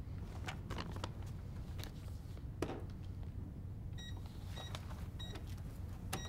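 Cash register keypad beeping as a sale is rung up: four short, evenly pitched beeps about two-thirds of a second apart, starting about four seconds in, after a few light clicks and rustles of handling at the counter.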